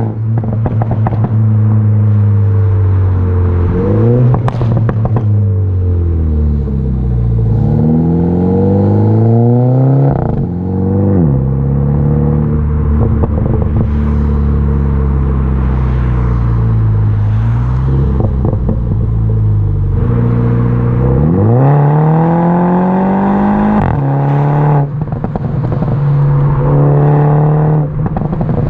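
Mini Cooper S F56's 2.0 turbocharged four-cylinder through a straight-pipe exhaust, accelerating through the gears: the revs climb and drop back at each shift several times. Pops and crackles come from the exhaust when the throttle is lifted.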